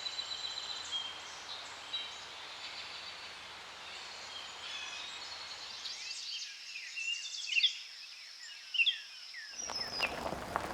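Several birds chirping and trilling over a faint outdoor hiss, with a few louder down-slurred calls in the second half. Just before the end a broad rushing noise starts.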